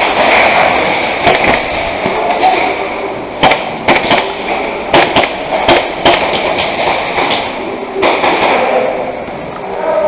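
Airsoft guns firing during a game: irregular sharp cracks, single and in quick pairs, over a steady rushing noise.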